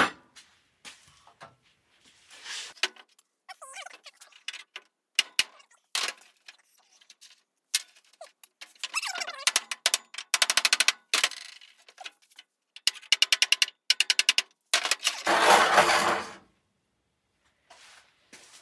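A rusted steel hinge rod being worked loose from the hinge of a vintage VW bus door: scattered clicks, then two runs of rapid ringing metal-on-metal taps and rattles, followed near the end by a longer scrape as the seized rod is drawn out.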